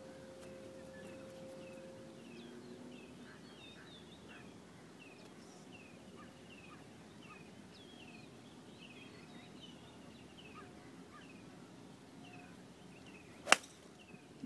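A golf iron striking the ball near the end: one sharp, loud crack. Before it, a bird repeats a short falling chirp about twice a second.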